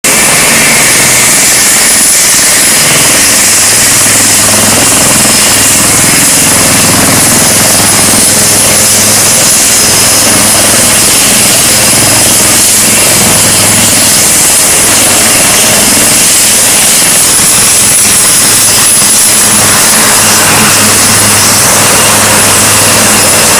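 HAL Light Combat Helicopter running on the ground with its rotors turning: its twin Shakti turboshaft engines give a loud, steady high whine over a low hum and wash of rotor noise.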